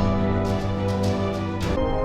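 Dark orchestral background music: sustained chords with a steady pulse of struck beats about twice a second, shifting to a new chord near the end.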